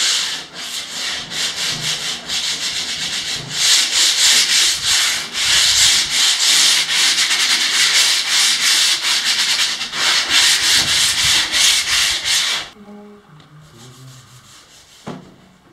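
Hand sanding of a painted wooden mold, sandpaper rubbed in quick back-and-forth strokes to knock little bits off the dried paint. The strokes stop about 13 seconds in, leaving only faint rubbing.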